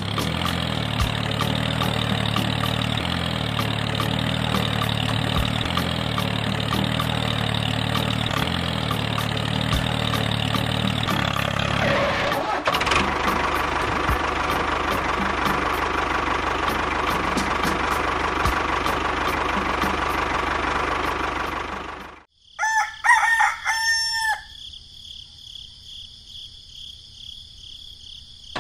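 A tractor engine runs steadily for the first twenty-odd seconds, its tone changing about twelve seconds in, then cuts off suddenly. Right after, a rooster crows once.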